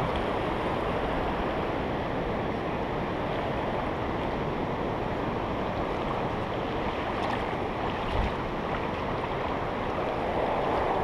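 Steady rushing of river rapids, water running fast over rocks, with a brief low bump about eight seconds in.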